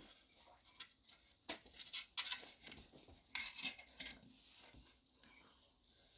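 Irregular soft scratching and rustling, in several short clusters: a cat clawing and rubbing at a small catnip toy as she plays with it.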